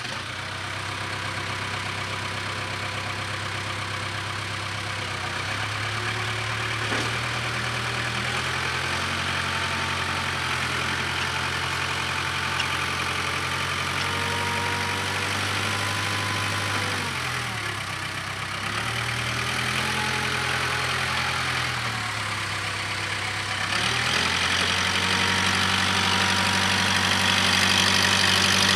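Case 580K backhoe's diesel engine running as the loader works, its note dipping and recovering twice and getting louder near the end.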